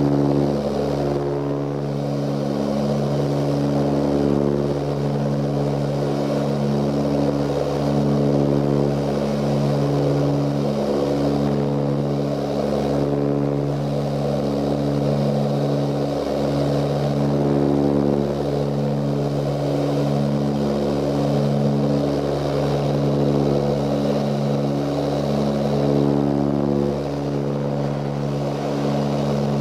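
Ilyushin Il-18's four turboprop engines and propellers droning in flight, heard inside the cabin: a steady chord of low tones that slowly swells and fades as the propellers beat against each other.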